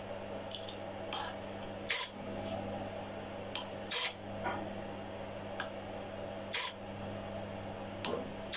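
Small hobby servo sliding a wooden kit door open through a plastic rack and pinion, with short sharp hissing bursts about every two seconds over a low steady hum.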